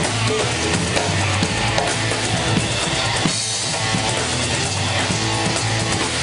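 Live band playing an instrumental groove: drum kit, electric bass, electric guitar and hand drums such as congas, in a steady rhythm.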